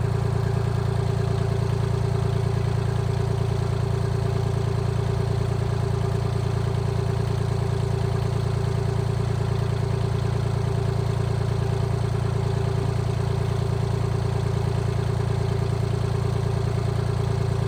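An engine running steadily at one even speed, with no revving or change.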